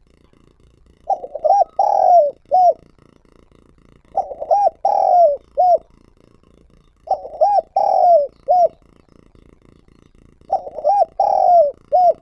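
Spotted dove cooing: four repeated phrases about three seconds apart. Each phrase is a few short coos around a longer, drawn-out note.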